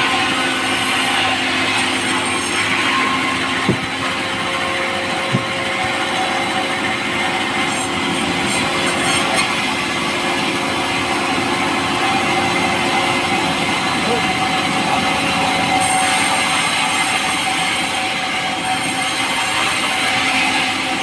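Power saw running steadily through a log of pulai, a light, soft timber, with a constant machine hum under the cutting noise and a couple of short knocks about four and five seconds in.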